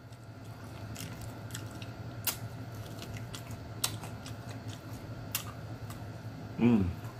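A person eating with their mouth close to the microphone: chewing and smacking with sharp clicks every second or so, over a steady low hum. Near the end comes a short hummed "mm" that falls in pitch.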